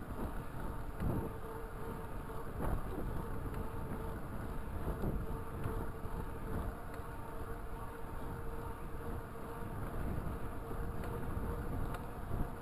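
Raleigh Talus 29er mountain bike rolling along a paved trail at a steady speed: a steady mid-pitched hum from the tyres over a low rumble of road and wind noise, with a few light knocks.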